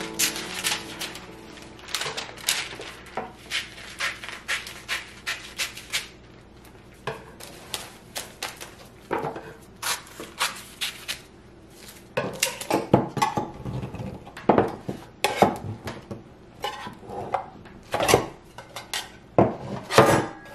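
Scissors snipping through parchment paper in a quick run of sharp cuts, then fewer snips; from about halfway, irregular knocks and clatter of a metal loaf pan being handled on a wooden cutting board.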